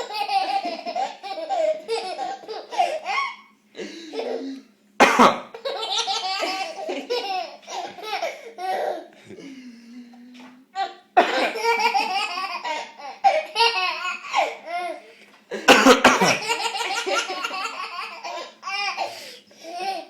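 A baby laughing in long bouts of giggles and belly laughs, each bout set off by a cough; three or four coughs in all, the laughter following each within a moment.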